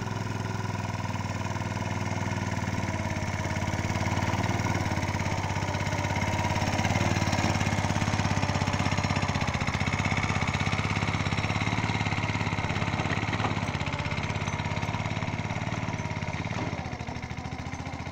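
Ride-on lawn mower's small engine running steadily while it tows a drag across tilled soil, growing a little louder in the middle and easing off again.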